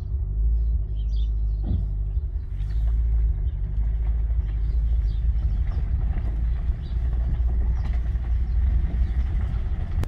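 Steady low rumble of a Lexus LS430's 4.3-litre V8 and its road noise, heard from inside the cabin while driving at low speed.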